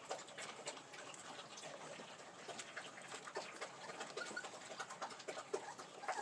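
Pit bull puppies eating wet, mushy dog food: faint, irregular wet clicks and smacks of lapping and chewing, with a few small squeaks.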